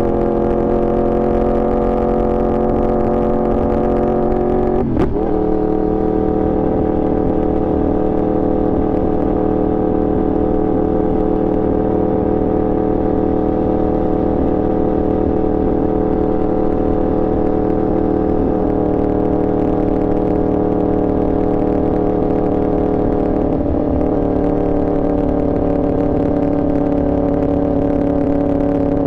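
Yamaha R1 inline-four engine running at a steady, nearly constant speed, with a brief sharp break in its tone about five seconds in.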